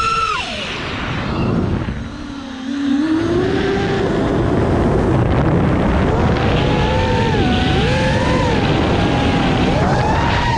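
FPV racing quadcopter's brushless motors and propellers whining, the pitch swooping up and down with throttle changes. The pitch drops sharply at the start and the sound dips quieter around two seconds in, then runs steadily loud with a wavering pitch.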